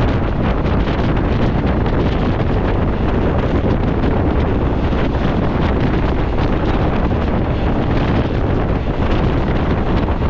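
Steady wind buffeting the microphone held out of a moving passenger train's window, with the train's running noise underneath.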